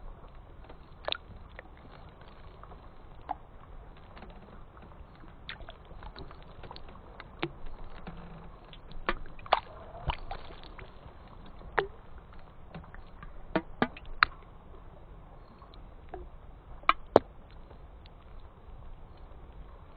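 Ice cracking and pinging: about a dozen sharp, short cracks at irregular intervals over a low steady hiss, the loudest pair coming about three-quarters of the way through.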